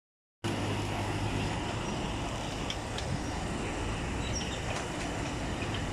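Mini excavator's diesel engine running steadily, a constant low hum under street noise, with a few faint clinks.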